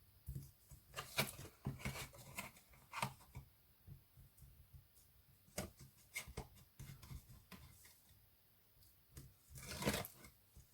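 Paper and card being handled: scattered rustles and sharp clicks, with backing strips being peeled off double-sided tape on the card flaps, a longer crackling peel near the end.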